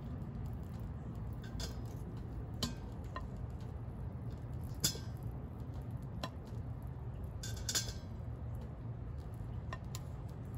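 Metal kitchen tongs clinking against a stainless steel Instant Pot inner pot and a ceramic plate as cooked whole potatoes are lifted out and set down: a handful of short, irregular clinks a second or two apart over a low steady rumble.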